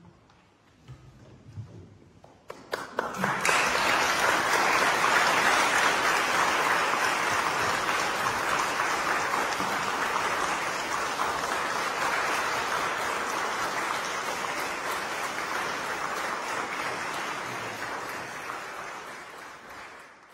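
Congregation applauding: a few scattered claps about two and a half seconds in swell quickly into steady applause, which slowly fades and dies away near the end.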